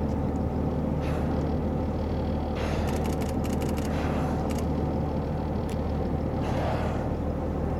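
Boat engine running with a steady low hum and rumble, under wash of water; several short bursts of hiss come and go over it.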